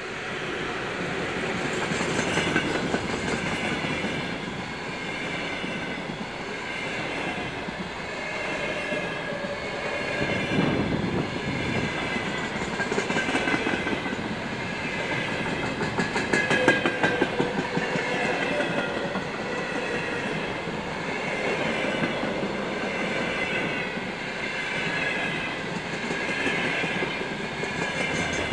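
Long container freight train behind a VL80S electric locomotive rolling past close by: a steady rumble of wagon wheels with repeated clicking over rail joints and a wavering high-pitched squeal. The sound swells in the first couple of seconds as the locomotive's rear section goes by, then holds as the 80-ft container flatcars pass.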